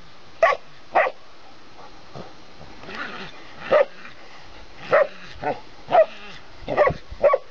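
A dog barking at a groundhog it is squaring off with: about eight short barks, two near the start, then a pause of two or three seconds, then a quicker run of barks in the second half.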